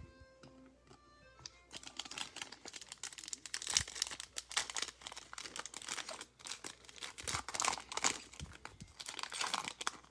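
A Donruss Optic trading-card foil pack crinkling as it is handled and torn open by hand, from about two seconds in.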